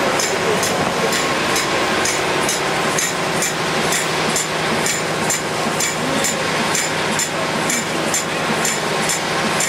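Paper tube machine running: a steady mechanical din with a regular light clicking about two and a half times a second.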